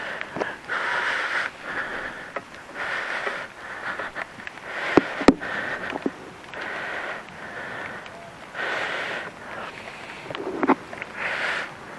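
A person breathing close to the microphone, a breath about every two seconds, with two sharp clicks about five seconds in.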